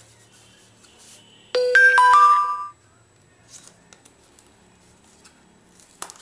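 A short electronic chime of four quick ringing notes, like a phone notification tone, about a second and a half in and fading within about a second. Around it, faint rustles and ticks of a cardboard product box being opened by hand.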